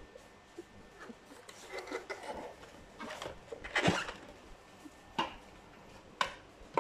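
Handling noise from an Amway food processor: scattered plastic knocks, clicks and rubbing as the base is set upright and the clear plastic bowl is brought down onto it. The loudest knock comes a little before the four-second mark.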